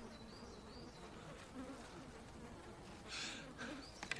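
A flying insect buzzing faintly, its pitch wavering as it moves about. A brief rustle comes about three seconds in.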